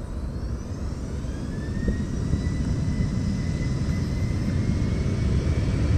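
Boeing 717's rear-mounted Rolls-Royce BR715 turbofans spooling up to takeoff power: a whine rising in pitch over a low rumble that grows louder as the jet starts its takeoff roll.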